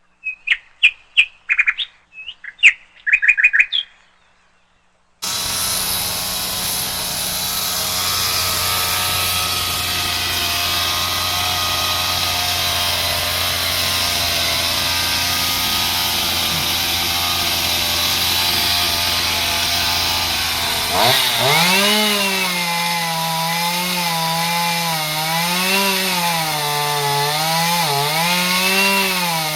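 A few seconds of bird chirps, a short silence, then a chainsaw running at a steady pitch. About two-thirds of the way in, its pitch starts dipping and recovering again and again as it cuts under load.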